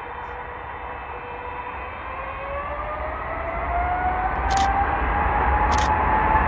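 Boeing 777-300ER's GE90 jet engines at takeoff power on a departing airliner, growing steadily louder with a whine that rises in pitch. Two short clicks about 4.5 and 5.8 seconds in.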